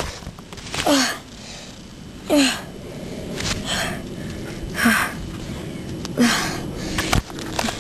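A person gasping and groaning in pain from a bitten leg: about four short, breathy cries, each falling in pitch, one every second or two. There is a sharp click near the end.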